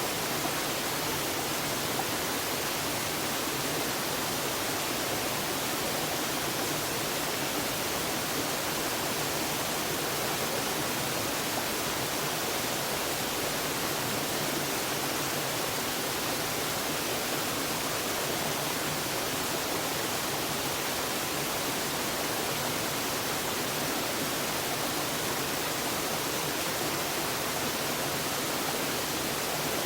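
Waterfall: a steady, even rush of falling water, with no pauses or strikes.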